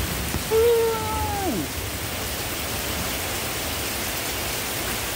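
Heavy rain pouring down in a steady hiss. About half a second in, a single voice-like call sounds over it for about a second, holding one pitch and then dropping away at its end.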